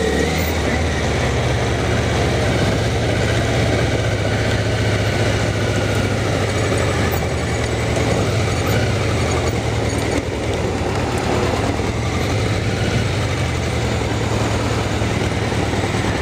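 Kawasaki ZZR400N motorcycle's inline-four engine running steadily at low revs as the bike creeps in slow traffic, under a steady rush of noise on the rider's microphone.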